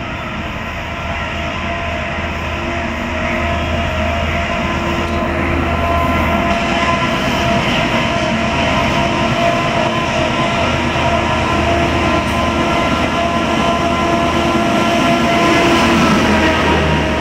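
ALCO WDM-3A diesel locomotive with a 16-cylinder engine, running under power as it accelerates toward and past the listener, growing louder until it passes near the end. Over it a horn sounds as one continuous steady tone because the horn is stuck, a sign of a fault on the locomotive.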